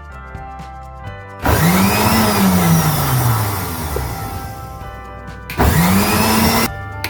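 Blender running in bursts to make a banana milkshake, its motor pitch rising and then falling with each burst. It starts after a second or so of background music and stops briefly once near the end before starting again.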